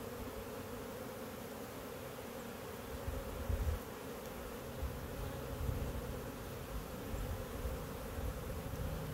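Honeybees buzzing in an even, steady hum around an opened hive as a frame of comb is held up, the hum of a calm colony. Irregular low rumbles come in from about three seconds in.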